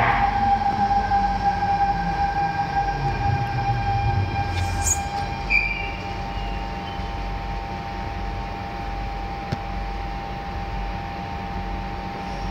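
Siemens C651 metro train braking to a stop: the running rumble fades out over the first six seconds as the braking torque falls to zero. A steady hum from the train's onboard equipment carries on through the stop. There is a brief high squeal about five seconds in and a single click near the end.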